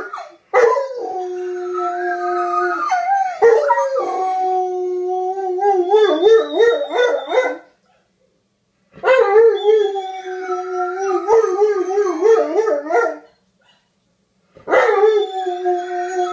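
Male dog howling in long drawn-out howls, the pitch held steady in places and wavering up and down in others, in three stretches with short breaks of about a second near the middle and again later. The howling is a mating call set off by a female dog in heat.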